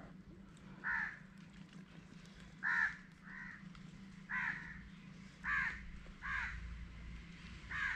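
A crow cawing repeatedly: seven short harsh caws at uneven intervals of roughly a second, over a faint low steady hum.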